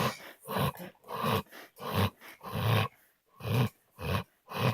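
A dog snoring loudly in a quick, even rhythm of rasping breaths, about one and a half a second, with a brief pause a little past the middle.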